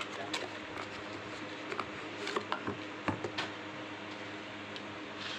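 Smartphone box and packaging being handled: scattered light clicks and taps, most of them between about two and three and a half seconds in, over a steady low hum.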